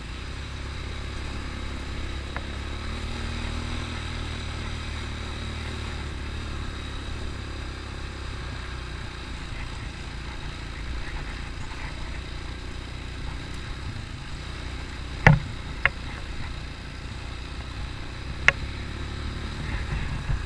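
ATV engine running steadily at low revs. Three sharp knocks come about two-thirds of the way in, and another near the end.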